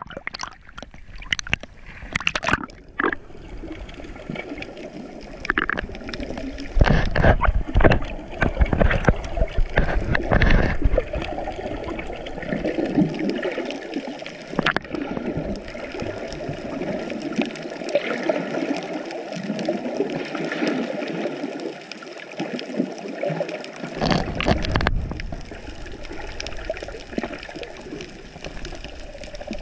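Water sloshing and gurgling around an action camera's waterproof housing as it is carried at and just below the surface, with louder bursts of splashing about a quarter of the way in and again near the end.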